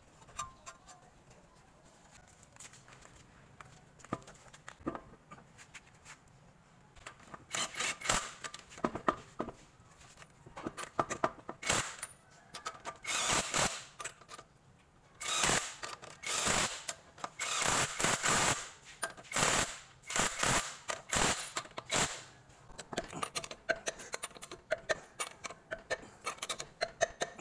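Cordless impact driver running lug nuts onto a car wheel and hammering them tight, in many short bursts about a third of the way in. Fainter metal clicks and clinks come before and near the end.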